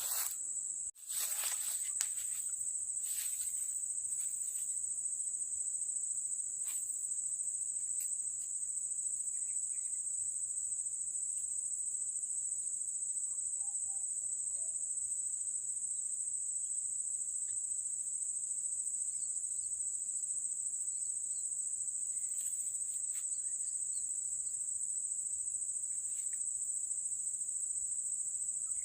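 Insects chirring in a steady, continuous high-pitched drone, with a few short clicks in the first couple of seconds.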